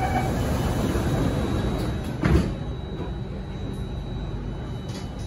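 The passenger doors of an Alstom Metropolis C830 metro train slide shut and close with one loud thud about two seconds in, just after the door-closing warning beeps stop. A steady hum of the standing train follows.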